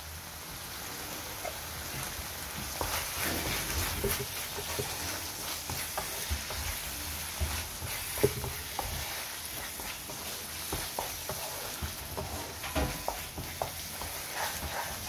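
Keema (minced meat) sizzling steadily as it fries in oil in a non-stick frying pan while yogurt is stirred into it with a wooden spatula. The spatula taps and scrapes against the pan now and then, most sharply about eight seconds in.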